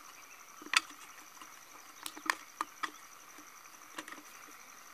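Binding wire being wrapped by hand around an empty aluminium beer can: scattered light clicks and scrapes of the wire against the can, the loudest about a second in.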